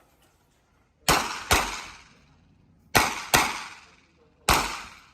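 Revolver shots in practical-shooting competition: five shots, fired as two quick pairs about half a second apart and then a single shot, each a sharp crack that trails off in echo.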